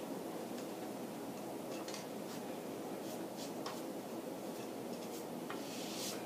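Steady low background noise with a few faint, scattered light clicks and scrapes, like small handling sounds.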